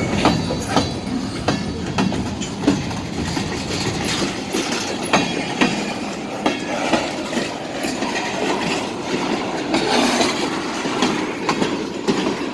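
Freight train cars rolling past close by: a steady rumble of the wheels on the rails with irregular sharp clacks and knocks as the wheels cross rail joints.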